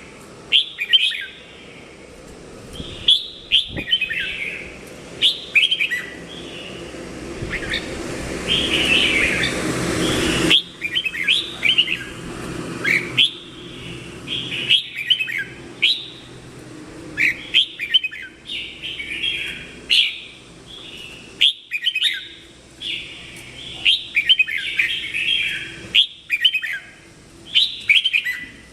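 Red-whiskered bulbul singing: short, quick warbling phrases repeated over and over. A rushing noise rises under the song from about six seconds in and cuts off suddenly near the ten-second mark.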